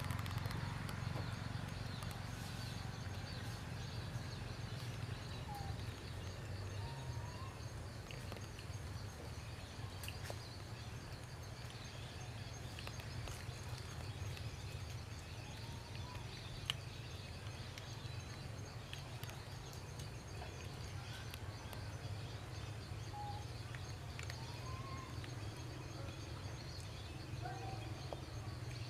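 Outdoor ambience: a steady low rumble with short high chirps every few seconds and an occasional faint click.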